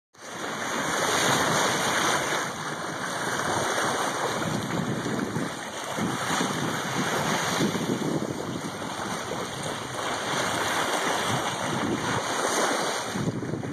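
Sea water rushing along a moving boat's hull, with wind on the microphone: a steady wash that swells and eases.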